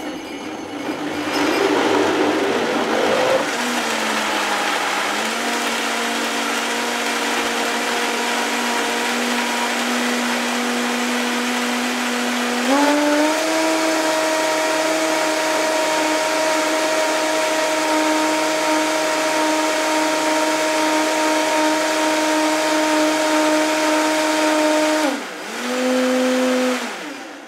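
High-speed countertop blender running full of leafy greens, with a tamper pushed through the lid. Its motor whine starts rough as the chunks break up, settles to a steady pitch, then steps up to a higher speed about halfway through. Near the end it drops out, runs again for a moment and stops.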